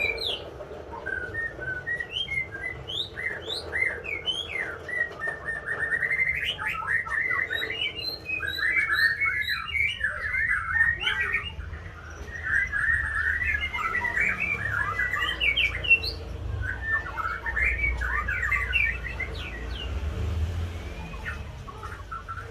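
White-rumped shama singing and chirping in dense runs of quick, short gliding notes, with a brief lull about twelve seconds in.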